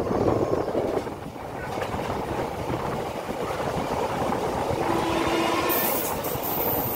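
Passenger train running, heard from a coach window: a steady rumble and clatter of wheels on the rails. A faint steady tone rises out of it for under a second about five seconds in.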